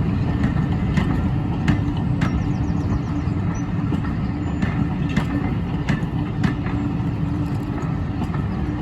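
A train running with a steady rumble, with irregular sharp clicks and knocks over it.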